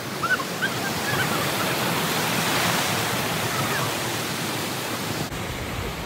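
Steady rush of water spilling over a stone weir below a waterfall, an even hiss of flowing water.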